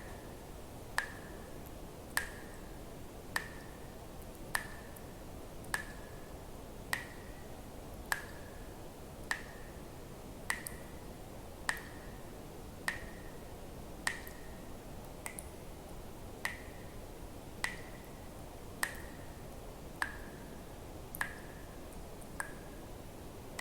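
Water dripping in a slow, even rhythm, one drop about every 1.2 seconds. Each drop is a sharp click with a short high plink, over a faint steady hiss.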